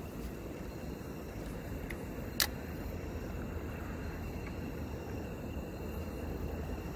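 Steady low rumble of wind on the microphone, with one sharp click about two and a half seconds in from handling a fishing rod and its spinning reel.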